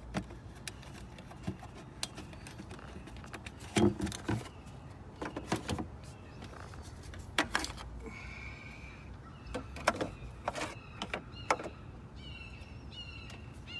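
Scattered clicks and knocks, with a bird chirping repeatedly in the last couple of seconds.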